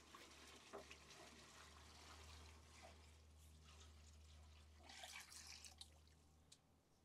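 Faint splashing and trickling of water poured into a disposable aluminium foil pan, loudest about five seconds in, over near silence.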